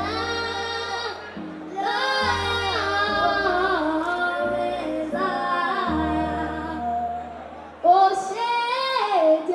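Two young girls singing into microphones, in long phrases with short breaks between them, over low held bass notes. A louder sung line starts near the end.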